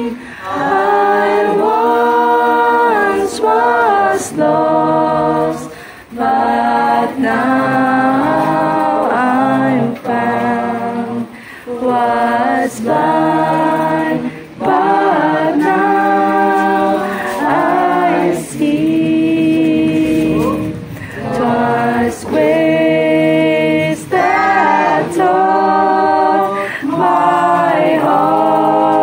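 A group of people singing together without instruments, line by line, with brief pauses between the phrases.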